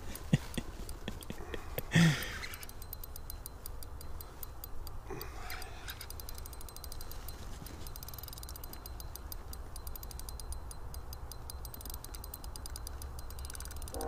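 Ice-fishing reel ticking rapidly and evenly while the angler works a big lake trout on a bent rod, over a steady low wind rumble on the microphone. A brief loud bump comes about two seconds in.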